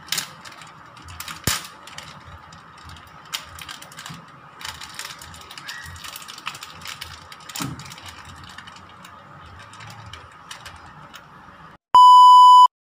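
Plastic packaging crinkling and crackling in irregular clicks as a pack of cured pork tocino is torn open by hand. Near the end a loud, steady test-tone beep sounds for under a second, as on a TV colour-bar screen.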